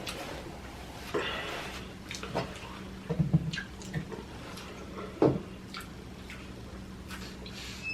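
Close-miked eating: wet chewing and lip smacking, with irregular small clicks and squishy mouth noises. The loudest smacks come about three and five seconds in.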